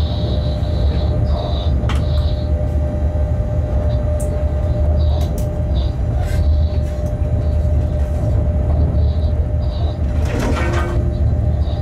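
Shunting locomotive running along the track, heard from inside the cab: a steady low rumble with a constant hum, a few scattered clicks, and a short rattling stretch about ten seconds in.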